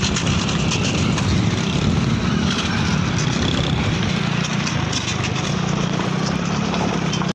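Motorcycle engine running steadily at speed, with a rushing noise over it.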